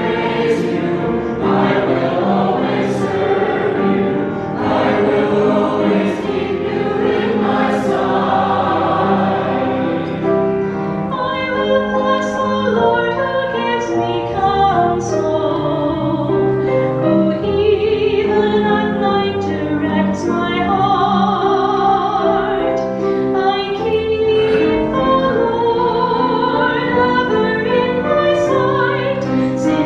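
A choir singing a hymn, the sung notes held and moving steadily from one to the next.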